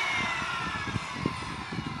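Circular saw winding down after a cut, its whine falling steadily in pitch and fading.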